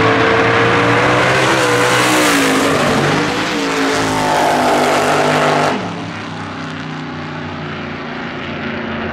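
Drag-racing car engine running hard, its pitch climbing, dipping briefly about three seconds in and climbing again, then falling away suddenly about six seconds in to a quieter, steady engine note.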